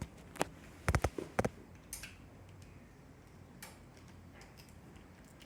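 Small sharp clicks and taps of a precision screwdriver working the screws on a smartphone's internal plastic cover: a quick cluster of ticks about a second in, then a few sparse taps.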